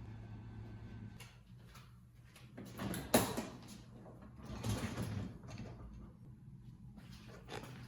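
Household handling noises: two sliding scrapes, about three seconds in and about five seconds in, the first with a brief squeak, then a few light clicks near the end, over a low steady hum.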